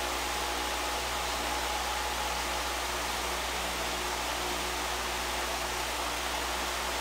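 Steady hiss with a faint low hum underneath and no distinct events: constant background noise.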